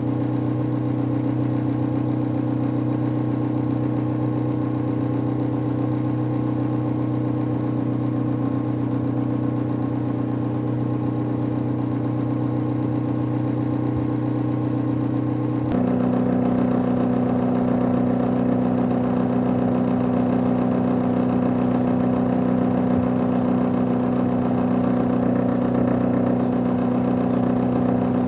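Homemade dust collector blower running steadily, its motor and impeller giving a constant hum with several steady tones. About halfway through the sound changes abruptly: the tones drop slightly in pitch and it gets a little louder.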